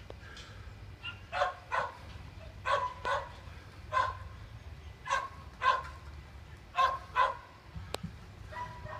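A dog barking repeatedly, mostly in quick double barks that come every second or so.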